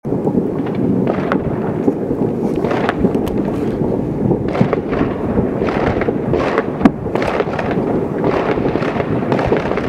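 Many fireworks and firecrackers going off at once across a city, a continuous rumble of overlapping bangs and pops with no pause, and one sharper, louder bang about two-thirds of the way through.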